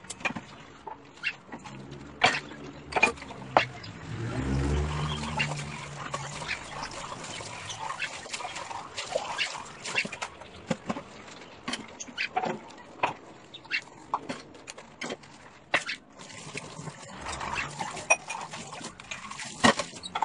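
Hand dishwashing at a kitchen sink: tap water running, with frequent sharp clinks and knocks of dishes and glasses being handled and set in a drying rack. A short low hum comes in about four seconds in.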